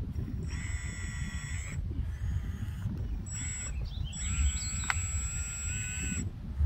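Hydraulic pump and servos of a 1/16 RC excavator conversion whining in three bursts as the boom and bucket are worked, each burst starting and stopping abruptly. A sharp click comes about five seconds in, over a steady low rumble.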